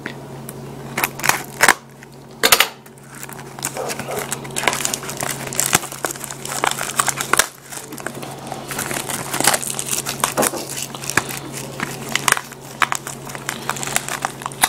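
Plastic shrink wrap crinkling and crackling as it is pulled and torn off a small card pack, in irregular bursts of crackles with a few sharper loud ones in the first few seconds.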